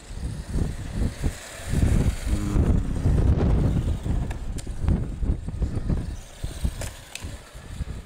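Wind buffeting the microphone in uneven gusts of low rumble, with a few sharp ticks in the second half.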